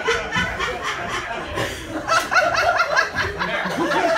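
Laughter; from about two seconds in, one high voice laughs in a quick run of rising-and-falling 'ha's, about four or five a second.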